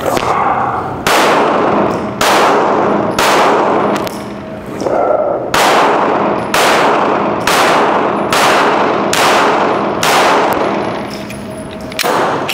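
Glock 17 9mm pistol fired at a slow, steady pace: about a dozen shots roughly a second apart, each ringing out with the echo of an indoor range.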